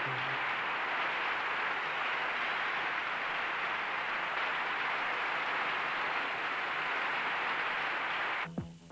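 Large crowd cheering and applauding in a steady roar. Just before the end it cuts suddenly to electronic dance music with a thudding beat.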